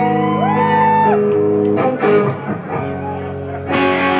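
Electric guitar through an amplifier playing ringing, sustained chords, with a few bent notes sliding up in pitch in the first second; a fuller chord swells in near the end.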